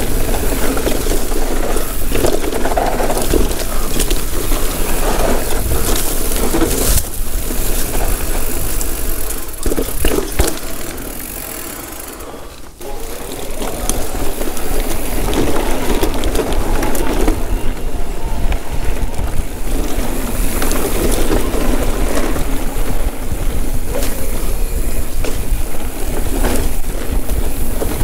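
Wind rushing over the camera microphone while an electric mountain bike's knobby tyres and frame rattle over a rough trail descent. The noise eases for a couple of seconds about ten seconds in, then picks up again suddenly.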